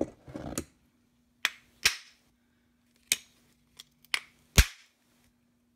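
Five sharp knocks, irregularly spaced, the last the loudest, as a part of a stock VW pedal assembly is struck to free a piece thought to be pressed on. Brief handling rustle of the part just before.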